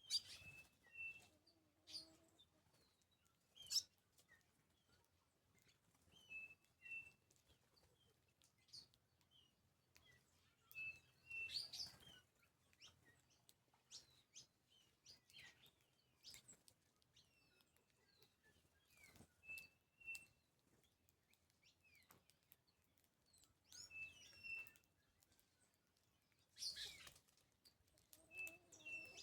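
Faint wild birds chirping in short, scattered calls with quick up-and-down glides, and a brief, clear whistled note repeated every few seconds.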